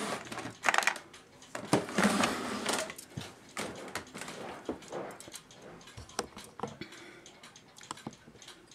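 Small tools and a marker being picked up and handled on a wooden workbench: scattered clicks, taps and light clatter, with a louder rustle about two seconds in.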